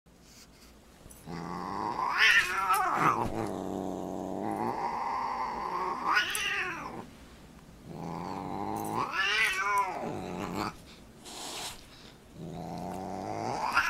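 Siamese cat growling in long, low drawn-out growls that swell into high yowls four times: an angry warning cry while squaring off with a dog.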